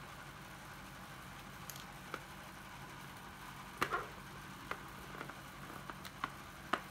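Scattered light clicks and knocks of cordless drill/drivers being handled and set down, over a faint low hum that stops about a second in.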